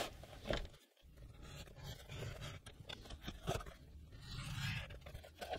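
Faint scraping of vegetable-tanned leather being slid and handled on a cutting mat, with a few light clicks.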